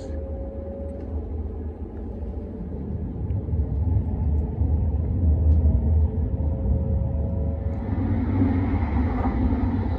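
Tohoku Shinkansen train running at speed, heard from inside the passenger cabin: a steady low rumble that grows louder a few seconds in, with a broader rushing noise joining near the end.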